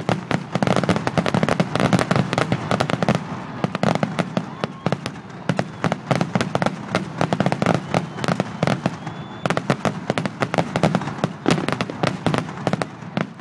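Fireworks going off in rapid succession: a dense, continuous stream of sharp bangs and crackles that stops at the end.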